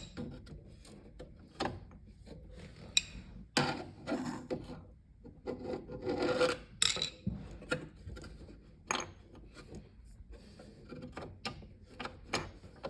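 A metal pin being worked into a refrigerator roller-wheel bracket: irregular scraping and rubbing broken by sharp clicks and knocks, with the longest scrapes in the middle.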